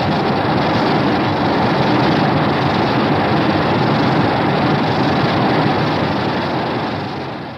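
Monster-movie sound effect: a loud, steady rushing noise that holds even throughout, then fades away near the end.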